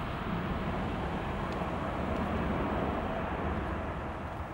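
Jet engines of a departing Boeing 777-200ER at takeoff thrust during the climb-out: a steady, deep rumble with a faint held tone. It swells slightly in the middle and eases off near the end as the airliner draws away.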